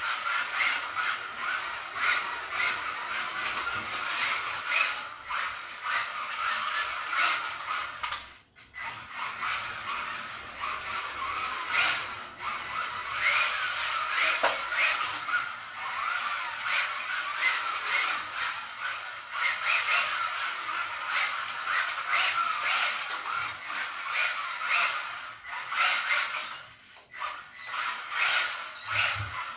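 Kyosho Mini-Z AWD 1/28 RC car drifting on a tiled floor: a steady electric motor whine with the tyres scraping and squeaking across the tiles and frequent small clicks. The sound drops out briefly about eight seconds in and again near the end.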